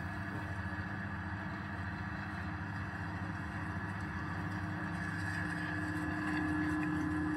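Stainless-steel grinding pulverizer running, a steady motor drone with a held low hum and a higher whine, growing slightly louder about six seconds in.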